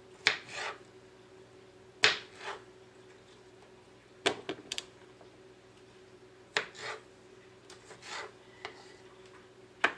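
Kitchen knife cutting cucumber slices into quarters on a cutting board: a sharp knock of the blade on the board every second or two, most followed by a short scrape.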